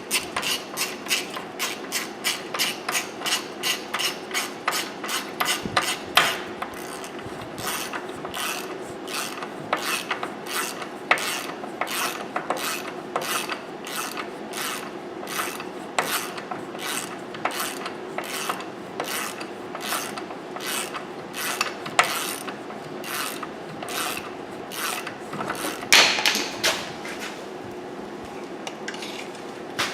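Ratchet wrench worked back and forth in quick repeated strokes, about two or three a second, its pawl clicking as the front axle nut is run down onto a new wheel bearing hub. A louder clank comes about six seconds in and again a few seconds before the end.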